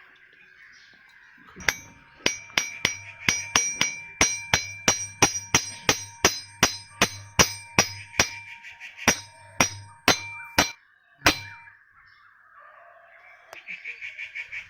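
Ball bearing being hammered into place on a ceiling fan motor: about twenty sharp metal-on-metal strikes, two or three a second, each leaving a ringing tone. A quick run of light ticks comes near the end.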